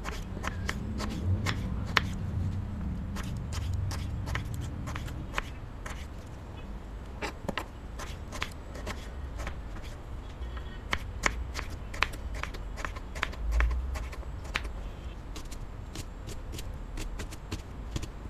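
Knife chopping raw potato into cubes on a wooden cutting board: irregular sharp taps of the blade on the board, a few a second.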